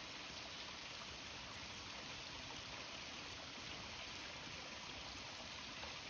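Small waterfall's running water, a steady splashing rush.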